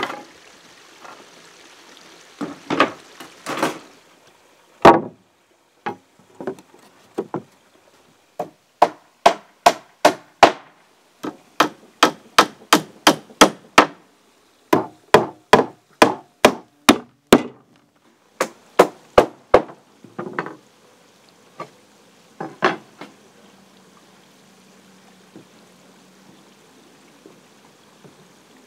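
Hammer nailing wooden deck boards: runs of sharp strikes, about two a second, with a few scattered knocks of wood before and after.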